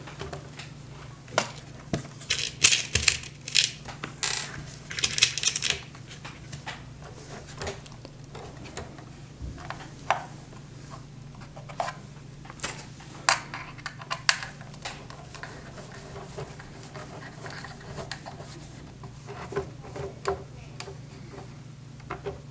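Irregular small clicks and clinks of M3 screws and an Allen key being handled and driven into a 3D-printed plastic tank hull, with a few quick clusters of taps, over a steady low hum.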